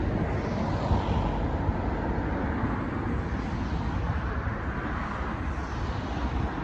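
Steady outdoor traffic noise: a continuous low rumble of road vehicles.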